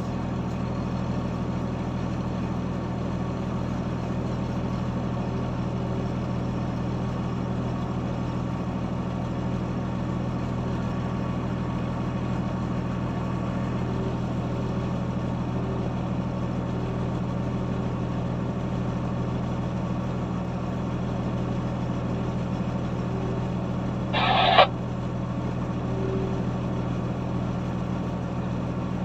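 Heavy diesel machine engine running steadily, a deep even drone. A short, louder sound breaks in once, near the end.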